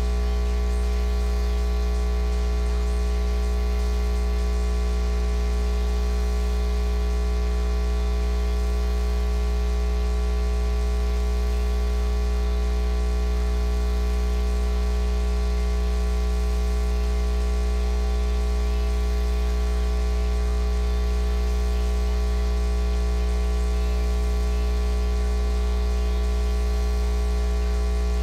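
Loud, steady electrical mains hum with a stack of buzzing overtones and a layer of hiss over it, unchanging.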